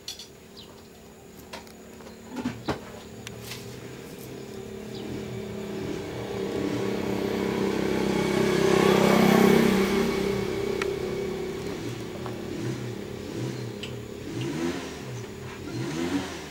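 A motor vehicle engine passing by, growing louder to a peak about nine seconds in and then fading away. A few sharp clicks come before it.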